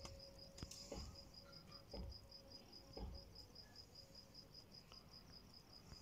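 Near silence, with a cricket chirping faintly in a steady high pulse of about eight chirps a second. A few soft low thumps come about a second apart in the first half.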